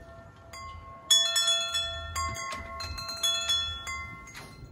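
Metal tube wind chime ringing: the tubes are struck again and again, so several clear tones overlap and slowly fade, with the loudest strike about a second in.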